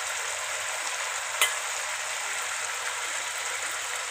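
Onion masala gravy sizzling steadily in a pan on a gas stove, with one sharp click about a second and a half in.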